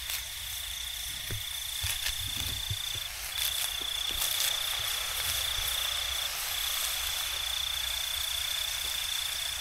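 An insect trilling steadily on one high pitch, with two brief breaks, over a steady hiss. A few soft knocks and rustles in the first three seconds as leaves are pressed into a wok.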